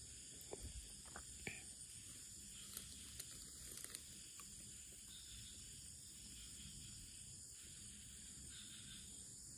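Faint, steady high chirring of an insect chorus at dusk, with a few small clicks in the first few seconds.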